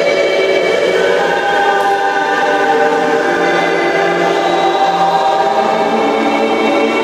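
Music of choir voices holding slow, sustained chords that shift only gradually.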